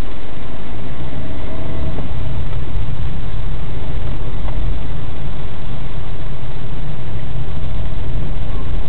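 Car engine and road noise heard from inside the cabin through a dashcam's built-in microphone: a loud, steady low rumble.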